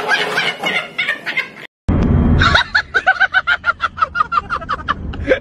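A woman laughing; then, after a brief cut-out and a short low rumble, a rapid, high-pitched cackling laugh in evenly repeated pulses, about six a second.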